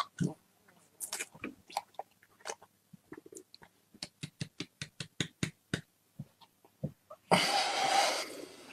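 Mouth clicks and wet smacks of a man chewing a dry mouthful of ground cinnamon, then a loud rough burst of breath about seven seconds in, lasting about a second.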